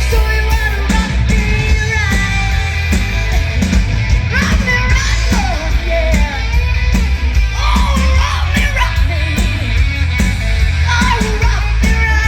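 Live rock band playing loudly, with pounding drums, a heavy bass and a bending melody line over them.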